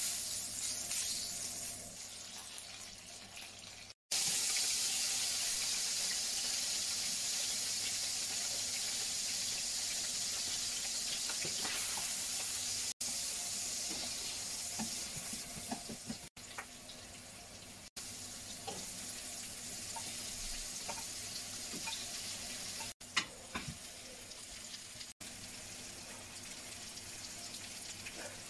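Onions and vegetables sizzling as they fry in hot oil in a frying pan, a steady hiss with light scrapes of tongs stirring them. The hiss drops out briefly several times.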